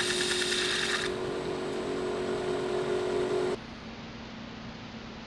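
Wood lathe running with a bowl gouge taking a fine shaving off the inside of a wooden stave drum shell for about the first second. The cut stops and the lathe runs on with a steady hum, which cuts off suddenly a little past halfway, leaving only a low hiss.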